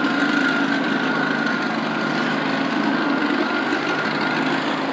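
Steady mechanical hum of a running engine, with a high whine held over it that stops near the end.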